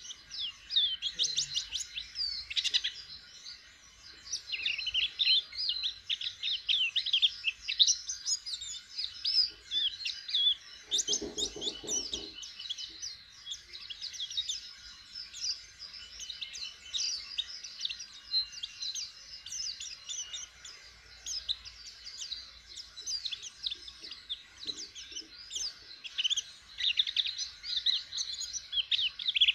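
A caged white-eye (pleci) singing a long, rapid twittering song of quick high notes, a young bird just starting to sing. A brief lower sound cuts in about eleven seconds in.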